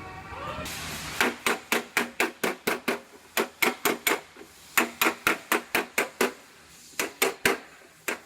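Hammer beating on sheet metal, knocking a pushed-in dent out of a rear body panel: rapid ringing blows at about three to four a second, in several runs with short pauses. Music fades out in the first second.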